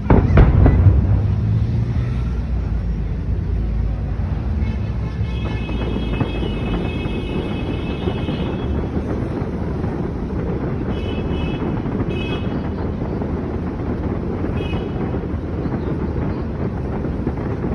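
A firework's boom right at the start, then a steady low rumble of wind on the microphone and crowd din, with high-pitched whistling tones a few times.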